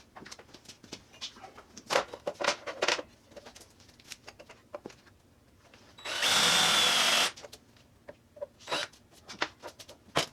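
An electric drill runs in one short burst of about a second, with a steady whine, among scattered clicks and knocks of the steel ammo can and tools being handled.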